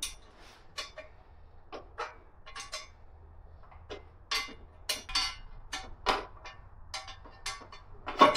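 Hand wrench working a stubborn bolt loose: a series of short metallic clicks and clinks, irregularly spaced, about one or two a second.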